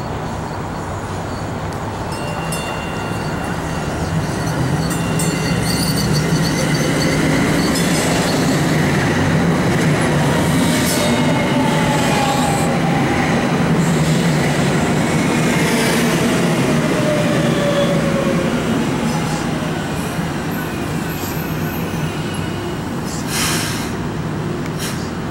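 A DART Kinki-Sharyo light rail train pulling into the station and slowing to a stop. It grows loud as it passes close, and its whine falls steadily in pitch as it slows, then fades as it halts.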